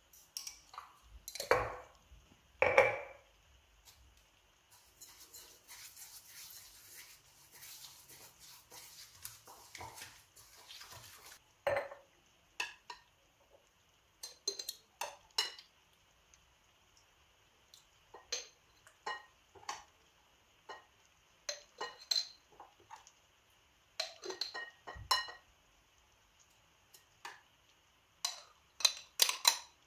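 A metal spoon clinking and scraping against a glass jar and a ceramic bowl as sugar and chopped orange are spooned between them. The light clinks come irregularly, the two loudest in the first few seconds, and a few seconds of soft steady scraping sound around the middle.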